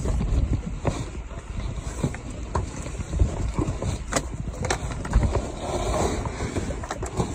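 Rumbling handling and wind noise on a hand-held phone microphone carried through a boulder scramble, with scattered sharp knocks and clicks every second or so.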